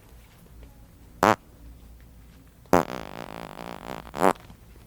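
Prank fart noises: a short loud one about a second in, then a longer, wavering one of about a second and a half that ends in a louder blurt.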